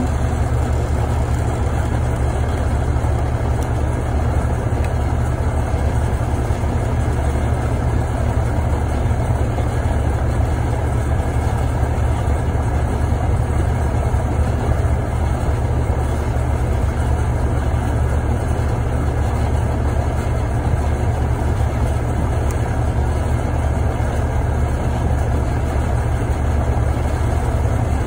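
Carrier heat pump outdoor unit running with a steady low hum. Its coil is frozen up, and its defrost board's speed-up pins are shorted to force a defrost cycle.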